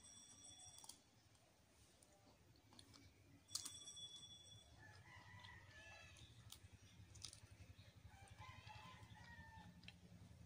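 A rooster crowing twice, faint, about five seconds in and again about eight seconds in, each call rising and then falling. A few sharp clicks, the loudest about three and a half seconds in.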